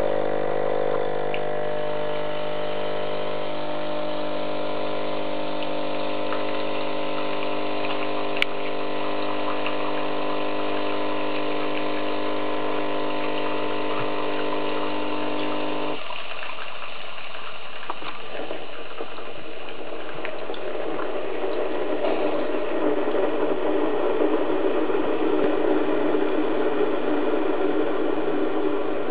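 Philips Senseo coffee machine's water pump running with a steady hum, pushing water out through the spout into a glass bowl; it cuts off suddenly about 16 seconds in. An uneven hiss follows for the rest.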